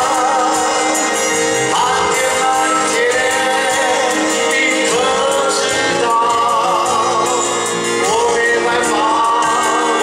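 Male singer performing a ballad live with band accompaniment, holding long notes with vibrato.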